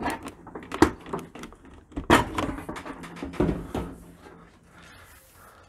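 Stainless steel front door panel of a Bosch dishwasher being pulled off by hand, knocking and rattling as it comes free: the loudest knock comes about two seconds in, with smaller knocks before and after.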